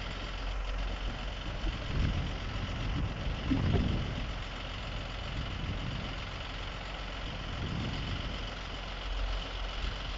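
Flatbed recovery truck's engine idling steadily while it powers the loading crane, with a few brief low rumbles about two and four seconds in.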